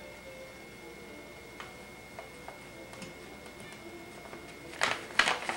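Hands working denim fabric on an ironing board: scattered light clicks and taps, then a few short, sharp rustling bursts near the end.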